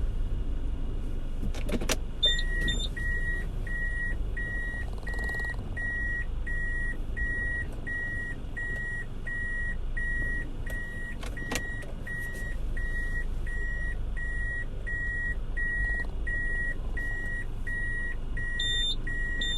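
A car's electronic warning chime beeping steadily about twice a second, starting just after a sharp click about two seconds in, over the low rumble of the car. A second click comes about halfway through.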